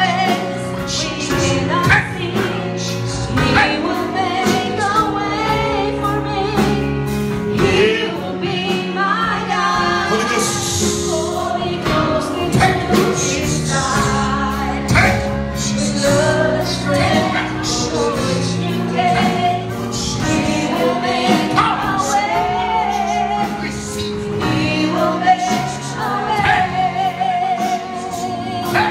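Gospel worship music: singing with instrumental accompaniment and a steady beat.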